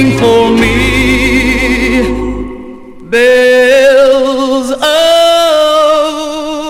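A 1962 pop ballad record's ending: singing voices hold long notes with vibrato over the band. The bass and band fall away about two and a half seconds in. After a short dip the voices come back holding a final chord, which steps up in pitch about two seconds later.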